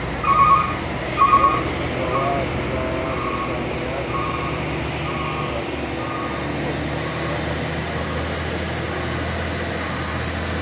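A vehicle's reversing alarm beeping at about one beep a second, loud at first and fading after the first few beeps. Under it a truck engine runs steadily.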